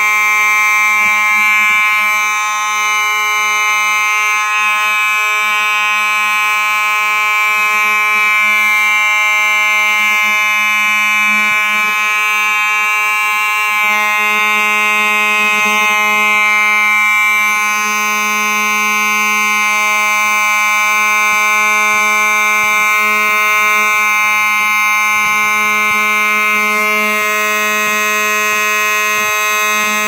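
Simplex 4903-9219 mechanical fire alarm horn strobe sounding continuously after its pull station is pulled: a loud, steady, unbroken buzzing hum with many overtones.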